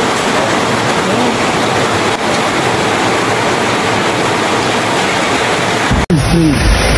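Steady, dense rushing of water, like surging floodwater or surf. About six seconds in it cuts off abruptly, and voices come in over a low rumble.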